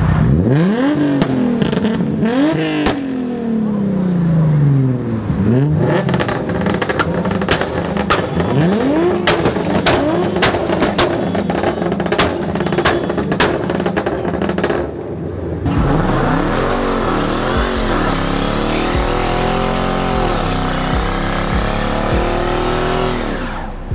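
Car engines revving hard in sweeping rises and falls, with many sharp cracks between them. About 16 seconds in, the sound changes to a burnout: an engine held at high revs with spinning tyres and a low steady rumble.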